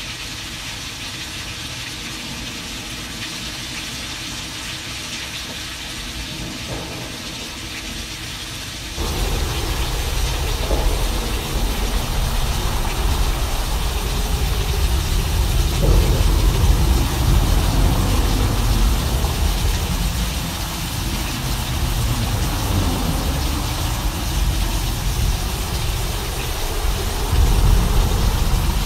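Simulated thunderstorm: a steady rain-like hiss, then about nine seconds in a deep thunder rumble cuts in abruptly and rolls on, swelling twice.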